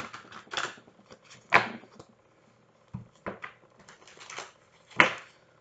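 Tarot cards being shuffled by hand: a string of short, sharp riffles and snaps with pauses between, the loudest about a second and a half in and again near the end.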